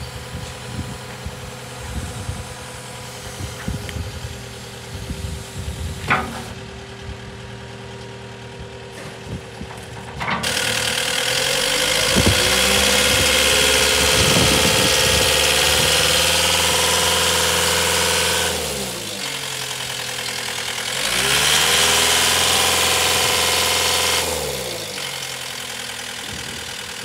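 Caterpillar 908M wheel loader's four-cylinder diesel engine running, heard close at the open engine bay. It idles with a few knocks and a sharp click about six seconds in, then about ten seconds in it is revved up and held high for several seconds. It drops back, is revved again for about three seconds and settles toward idle.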